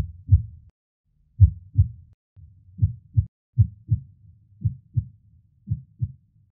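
Heartbeat sound effect: deep, muffled lub-dub thumps in pairs, six beats at roughly one a second.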